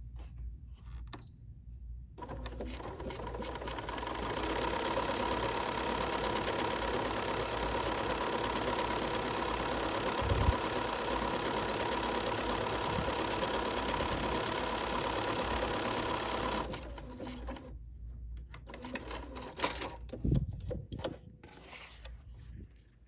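Bernina 480 computerized sewing machine stitching out a decorative stitch at 9mm width, running steadily for about fifteen seconds, starting about two seconds in and getting louder a couple of seconds later, then stopping. A few short rustles follow as the fabric is pulled out from under the presser foot.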